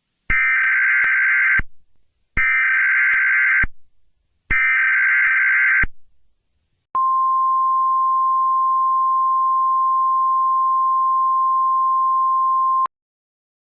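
Emergency Alert System SAME header: three bursts of screeching digital data tones, each just over a second long, then a single steady attention tone held for about six seconds that cuts off sharply. Together they signal the start of an emergency alert broadcast.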